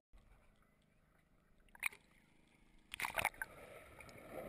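Muffled underwater sound of a swimming pool heard through a submerged action camera, with a single sharp knock about two seconds in. About three seconds in comes a short burst of splashing as the water surface is broken, then water sloshing against the camera at the waterline.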